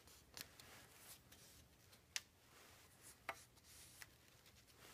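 Faint rubbing and a few soft clicks of Syncork foregrip rings being twisted by hand on a fishing-rod blank. The sharpest click comes about two seconds in.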